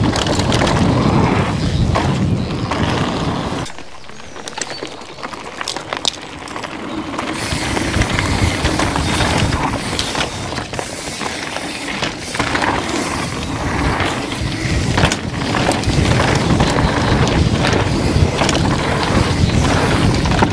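Downhill mountain bike riding over a rough trail: tyre roar on dirt and rock, with constant chain and suspension rattles and knocks, under heavy wind buffeting on the action-camera microphone. The noise eases for a few seconds about four seconds in, then builds again.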